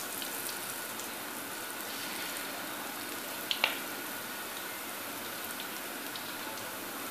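Besan-batter pakoras frying in hot ghee in an iron karahi, a steady sizzle with fine crackling. There is a single sharp tap about three and a half seconds in.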